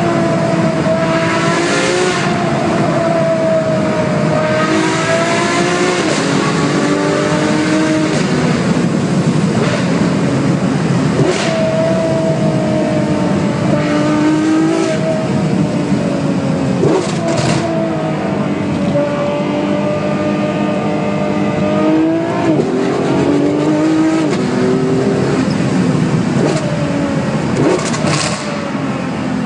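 Ferrari 599 GTO's V12 engine, heard in a tunnel, pulling hard with its pitch climbing and then dropping sharply at each gear change, over and over. A few brief sharp noises come through along the way.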